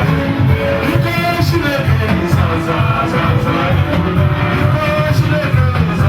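Loud live praise music with a heavy, pulsing bass line and voices singing.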